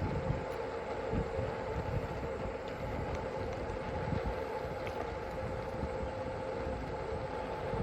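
Wind buffeting a body-worn microphone while riding, with a steady mechanical hum underneath.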